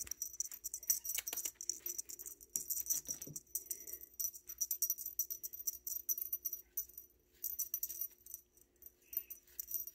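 Cat toy jingling and rattling in quick irregular clicks with a bright high ring, as a kitten bats and pounces on a feather wand toy.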